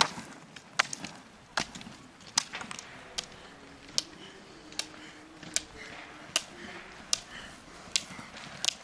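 Roller-ski poles' metal tips striking asphalt in sharp, even clicks about every 0.8 seconds as a skier skates along the road.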